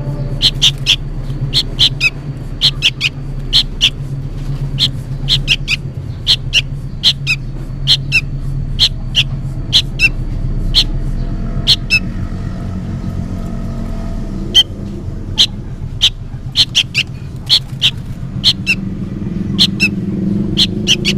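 Young sooty-headed bulbul giving short, sharp, high calls over and over, often in quick pairs, pausing for a couple of seconds about twelve seconds in: noisy calling that the uploader takes for a fledgling calling its parent. A steady low hum runs underneath.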